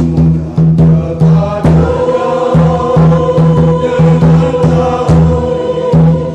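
Church choir singing a hymn in unison and parts over a tifa, an hourglass hand drum, beating a steady rhythm; from about two seconds in the voices hold one long note.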